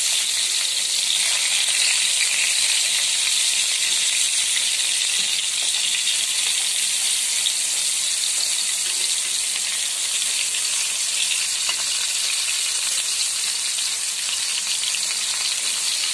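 Chicken kabab patties shallow-frying in hot oil in a pan: a steady sizzle.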